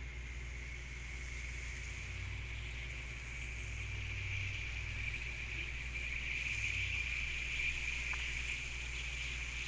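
Frozen carbonated mineral water fizzing in an opened glass bottle as carbon dioxide escapes from the thawing ice: a steady high hiss that swells in the middle, as the bottle's mouth comes close.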